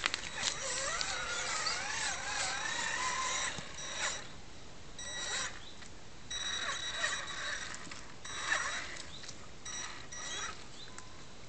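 Traxxas Summit RC monster truck's electric motor and gears whining, wavering up and down in pitch with the throttle for the first few seconds, then in short spurts as the truck crawls. Its tyres crackle over dry leaves and mud.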